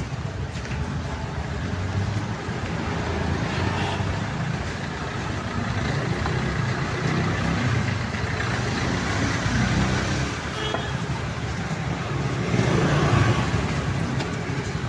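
Street traffic: the engines of passing cars and motorbikes making a steady low rumble that swells a little about twelve seconds in.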